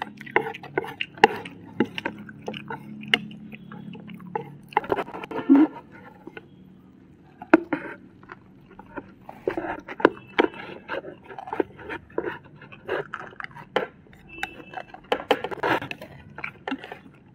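Close-up eating sounds: egg hakka noodles slurped and chewed, with many sharp clicks of chopsticks against ceramic plates.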